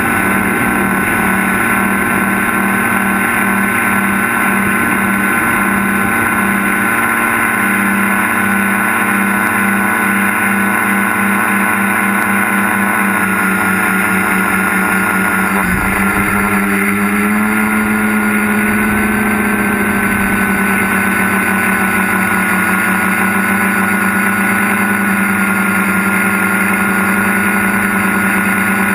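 Tricopter's electric motors and propellers running with a steady drone, recorded on the aircraft. About halfway through there is a brief thump and the pitch shifts as the copter switches to GPS return-to-home and turns toward home.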